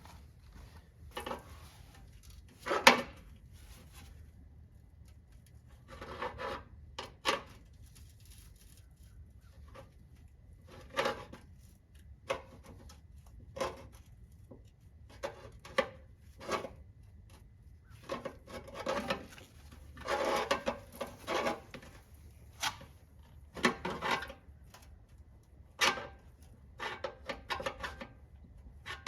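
Irregular scraping, rubbing and clunking of hands and tools working on metal parts, with one sharp knock about three seconds in.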